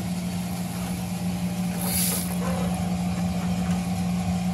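Coffee roaster's cooling tray running with freshly roasted beans: a steady motor and fan hum as air is drawn down through the beans, with a brief hiss about two seconds in.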